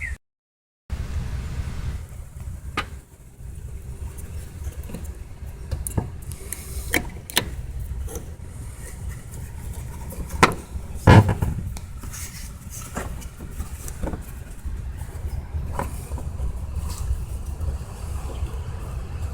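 Scattered clicks and knocks of hands and tools working on car parts, the two loudest about ten and eleven seconds in, over a steady low rumble.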